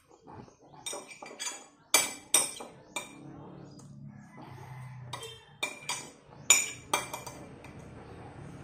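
Metal spoon clinking and scraping against a ceramic plate while eating: about ten sharp clinks scattered unevenly, loudest about two seconds in and about six and a half seconds in.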